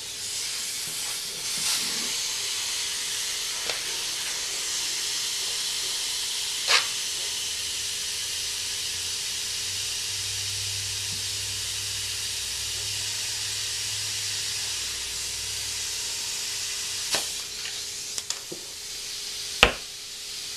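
Compressed air hissing steadily through an air chuck into a tubeless lawn-tractor tire, inflating it once the bead has been seated. A few sharp knocks cut in, one about a third of the way in and the loudest near the end.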